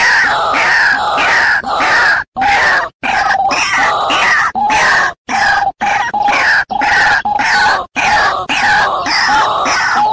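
White-breasted waterhen calls repeated quickly, about three falling notes a second over a steadier lower tone, cut by several brief sudden drop-outs. This is a looped bird-trapping lure recording used to call the bird in.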